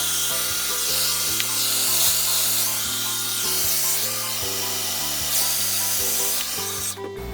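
Hair dryer blowing on its cool setting while a brush is drawn through hair; the rush of air rises and falls with the strokes and the dryer cuts off near the end. Background music with a stepping bass line runs underneath.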